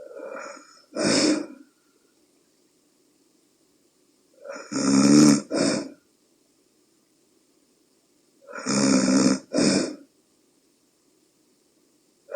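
A woman snoring in her sleep with a nasal dilator in her nostrils, which has not stopped the snoring. Three snoring breaths come about four seconds apart, each a softer sound followed by a louder one, and a fourth begins at the very end.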